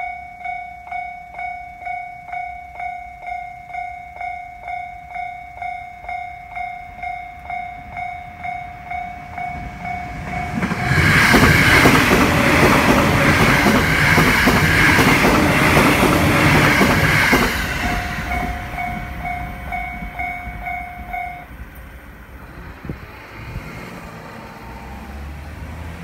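Japanese level-crossing alarm bell ringing steadily, about two strokes a second. About ten seconds in, an electric commuter train passes through the crossing for about seven seconds, loud enough to drown the bell. The bell rings on briefly after the train has gone, then stops.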